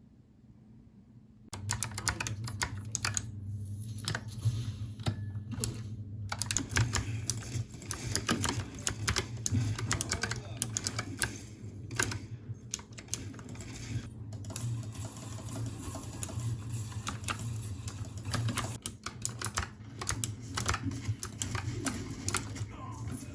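Typing on a Razer Huntsman Mini opto-mechanical keyboard: rapid, irregular keystroke clicks and clacks that start about a second and a half in and carry on steadily.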